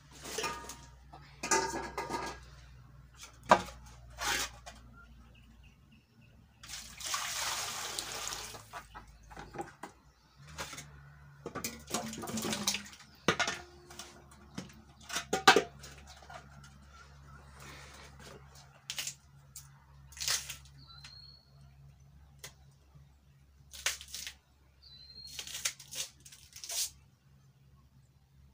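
Metal cooking pots clanking on the floor and water splashing as peeled potatoes are washed by hand in a metal pot, with a long stretch of splashing or pouring. A bird chirps briefly a few times in the second half.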